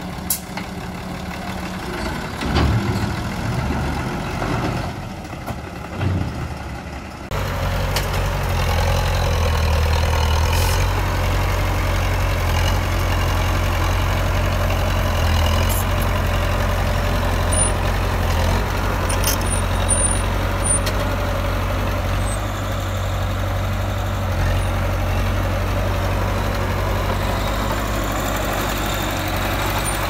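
Heavy diesel engines of earthmoving machinery running, with a few knocks in the first seconds; about seven seconds in the sound changes abruptly to a louder, steady low engine drone.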